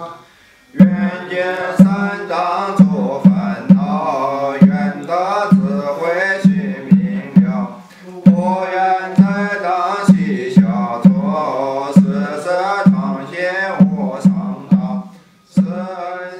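Background music: a chanting voice over a steady low beat.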